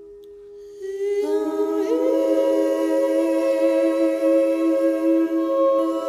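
Wordless singing voices enter about a second in with long held notes in harmony over a quiet sustained tone. One voice slides up to a higher note and holds it, giving slow, meditative vocal music.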